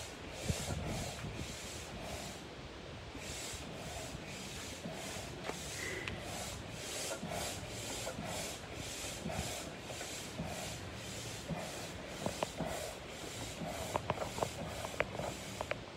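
Upright hand air pump being worked steadily to inflate a portable swimming pool. Each stroke gives a rush of air, about two strokes a second, with a few light clicks near the end.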